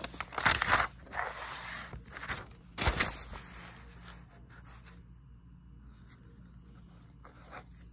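Spiral notebook page being flipped over: paper rustling and scraping in several short bursts, with a sharp knock about three seconds in, then quiet.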